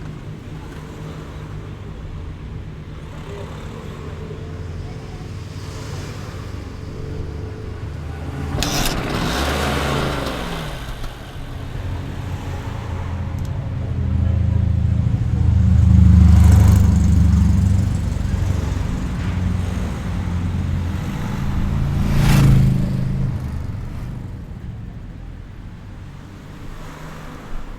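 City street traffic: a steady rumble of engines and tyres, with vehicles passing close by. One goes by about nine seconds in, its pitch falling as it passes. The loudest, deepest pass comes in the middle, with another shortly after.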